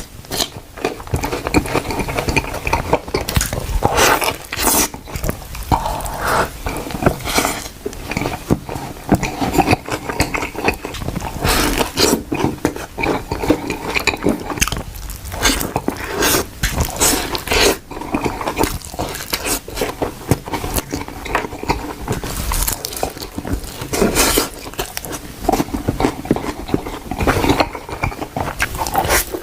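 Close-miked eating: repeated bites and wet chewing and smacking of food, an irregular run of clicks and crunches.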